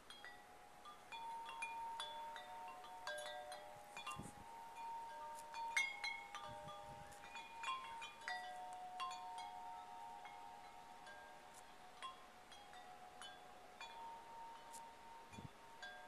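Wind chime ringing faintly and irregularly: its tubes are struck again and again at uneven moments, and their clear notes overlap and ring on.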